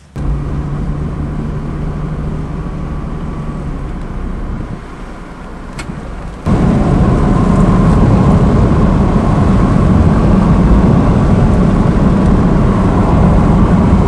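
Car on the move, with steady engine and road noise that jumps abruptly louder and heavier about six seconds in.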